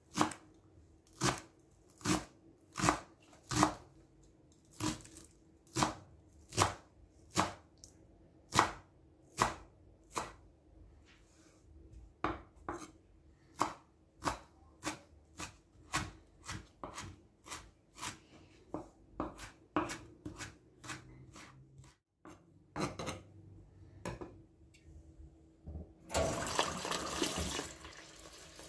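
Chef's knife chopping fresh dill on a wooden cutting board: a long run of sharp knocks, slow at first and then quicker, about two a second. Near the end the chopping stops and water from a tap runs steadily onto rice in a bowl in a stainless steel sink.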